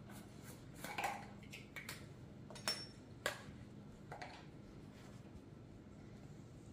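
Measuring spoon clinking and scraping in a salt jar as teaspoons of salt are scooped out: a handful of light clinks, the sharpest about three seconds in.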